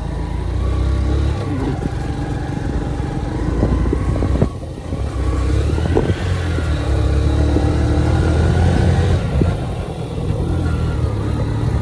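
Motor vehicle engine running while driving along a bumpy dirt track, its pitch rising and falling with the throttle, with a couple of knocks and rattles from the bumps.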